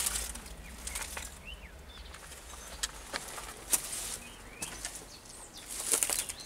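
Footsteps rustling and crunching over dry grass and debris, sparse at first and denser near the end, with a few faint bird chirps.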